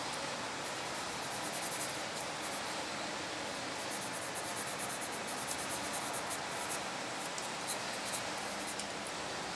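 Coloured pencil scratching on drawing paper in rapid, irregular hatching strokes, over a steady hiss.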